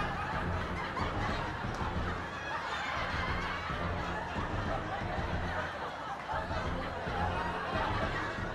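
Canned audience laughter over background music with a steady bass line.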